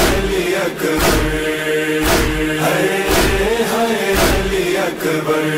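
Noha chanting between verses: voices chant a wavering melody over a held drone. A heavy beat falls about once a second, the matam chest-beating that keeps time in a Shia mourning lament.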